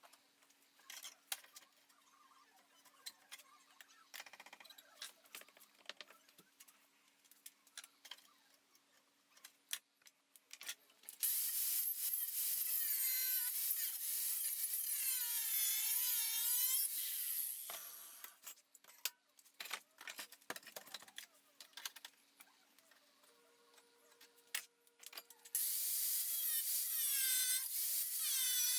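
Angle grinder with a small cut-off disc cutting steel angle iron: two long runs of grinding, the first starting about eleven seconds in and lasting about six seconds, the second starting near the end, the motor's whine sagging and recovering as the disc bites. Between them, scattered clicks and knocks of metal being handled.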